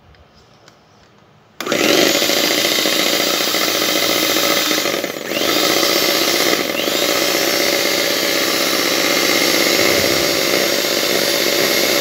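Mondial Prática Duo Black stand mixer switched on about a second and a half in, its motor running steadily with twin beaters whisking egg whites toward stiff peaks in the small bowl. Two brief dips in the motor sound come a few seconds after it starts.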